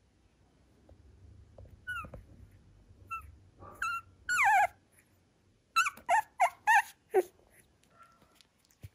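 Young Miniature Schnauzer puppy squeaking and whimpering in high, falling-pitched cries. A few single squeaks come first, then a longer whine about four seconds in, then a quick run of about five squeaks.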